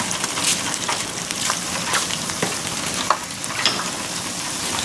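Crab rangoon deep-frying in hot oil: a steady sizzle with scattered sharp crackles and pops as the wonton wrappers brown.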